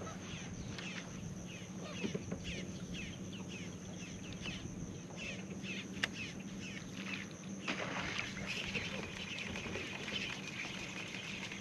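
Birds calling outdoors: quick down-slurred chirps, two or three a second, getting busier about two thirds of the way in, over a steady low hum.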